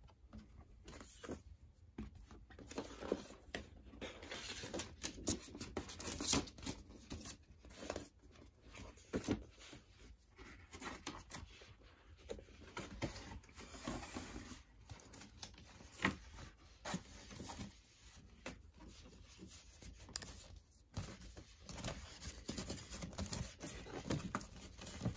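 Paper record sleeves and a cardboard album jacket rustling, crinkling and scraping as a vinyl LP and its insert are handled and slid back into their sleeves, with irregular small taps throughout.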